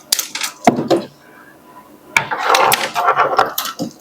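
Handling noise of circuit boards and test leads being moved on a workbench: a few sharp knocks in the first second, then about a second and a half of rubbing and clattering.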